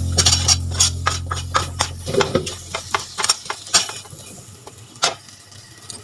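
Steel ladle clinking and scraping against a metal wok as vegetables are stirred, several quick strikes a second, thinning out and stopping after about four seconds, with one last clink about a second later.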